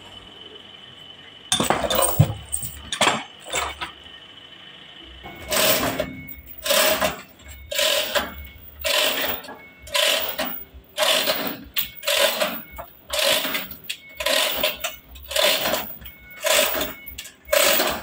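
Repeated scraping strokes on the trembesi log's surface. A few uneven scrapes come in the first seconds, then from about five seconds in a steady rhythm of about three strokes every two seconds.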